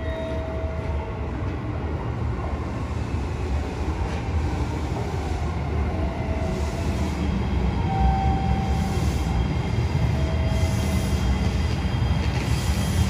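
A JR Shikoku 7200 series electric train pulling into the station: a steady low rumble of wheels on rail that grows louder as it draws alongside, with a few brief short tones and patches of hiss in the second half.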